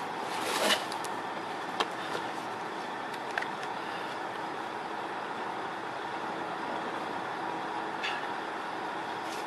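Steady outdoor background hum of distant traffic with a faint steady tone. A brief rustle and a few small clicks of handling come about a second in, then a few more scattered through.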